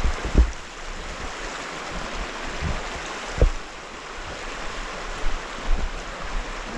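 Creek water rushing steadily, with a few brief low thumps of wind buffeting the microphone.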